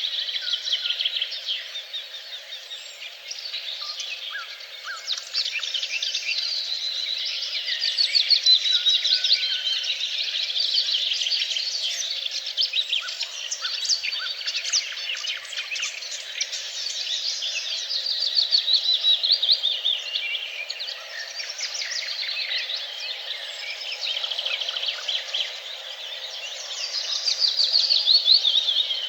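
A chorus of songbirds singing at once: dense, overlapping chirps and rapid trills, some trills sliding down in pitch, with the louder bursts about a third of the way in and again near the end.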